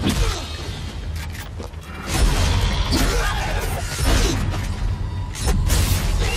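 Action-film soundtrack: a music score with heavy low rumble under bursts of gunfire and sharp impacts, against steady rain.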